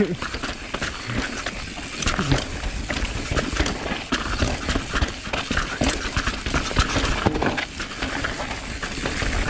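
Mountain bike rattling down a rocky trail: a fast, irregular clatter of knocks as the tyres and bike hit rocks, over a steady low rumble.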